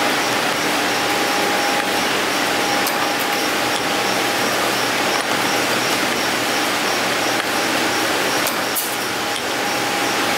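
A 502 CNC spring-forming machine running steadily. There is a dense mechanical din with a whining tone that drops out for a few seconds past the middle and then returns, plus a few sharp clicks from the tool slides working the wire.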